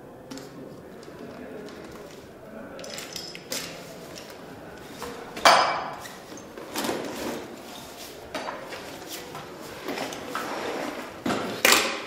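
Rustling and clattering from a backpack and a crumpled sheet of paper being handled at a classroom desk, with several knocks; the sharpest is about halfway through and another comes near the end.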